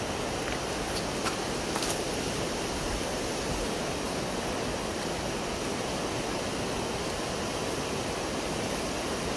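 Steady rush of river water, with a few faint clicks about a second or two in.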